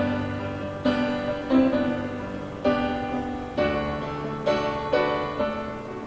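Background music: a piano playing slow chords, a new one struck roughly every second and each dying away.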